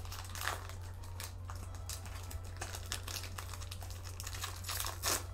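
Foil booster-pack wrapper crinkling and tearing as a Pokémon card pack is handled and opened, a scatter of small irregular rustles and clicks over a steady low hum.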